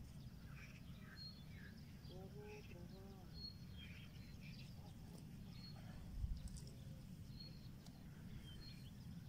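Outdoor bird chatter: short chirps and one high note repeated about every second and a half, over a steady low rumble, with a brief low thump about six seconds in.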